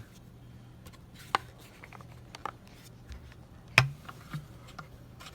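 A few sharp clicks and taps of plastic vacuum parts being handled, the loudest a little before the end, over a faint steady hum.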